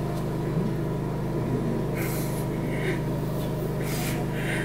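A steady low hum that holds the same pitch throughout, with a few short breathy hisses about two and four seconds in.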